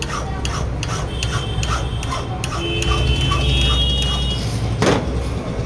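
A hand file rasping in short even strokes, about three a second, across a car key blank, cutting the key's notches by hand. A single loud knock comes near the end, over a steady low hum.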